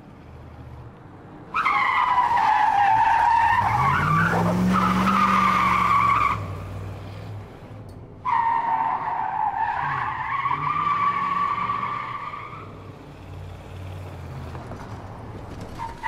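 Car tyre-squeal sounds in two stretches of about four to five seconds, each starting suddenly, with a low engine rev rising beneath them.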